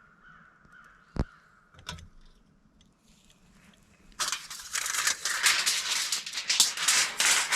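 Two sharp clicks, then from about four seconds in a loud, continuous crinkling and rustling of a bag or packaging being rummaged through.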